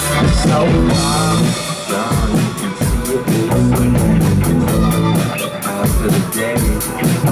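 Live band playing an instrumental passage, with a steady drum beat under the other instruments.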